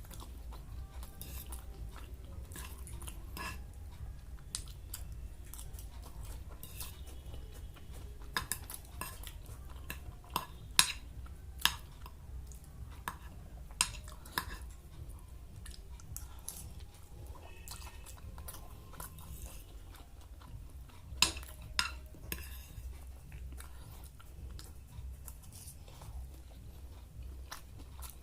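A person eating fried Maggi noodles and chicken pakora: chewing and crunching, with cutlery clicking against a plate at irregular moments, the sharpest clicks about a third and three quarters of the way in. A steady low hum runs underneath.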